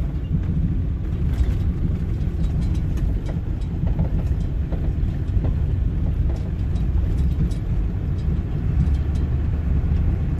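Steady low rumble of a car driving slowly on an unpaved sand road, heard from inside the cab, with light scattered ticks.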